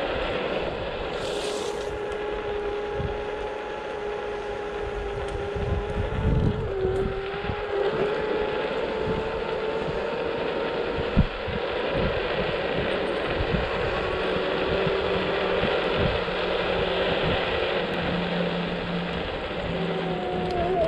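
Motor scooter's engine running while riding at a fairly steady speed, its whine shifting slightly in pitch, with wind buffeting the microphone. There is a single sharp thump about eleven seconds in.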